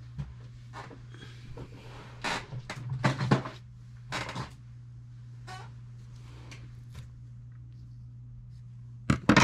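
A strip of double-sided tape being handled, with scattered rustles and light clicks, then a few sharp snips of scissors cutting it just after nine seconds in. A steady low hum runs underneath.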